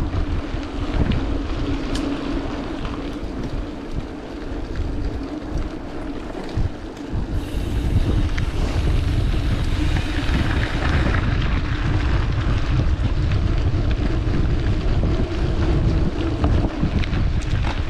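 Wind rumbling over the microphone of a camera on a moving mountain bike on a dirt forest road, with a steady low hum underneath. The wind noise grows louder about seven seconds in, as the bike picks up speed.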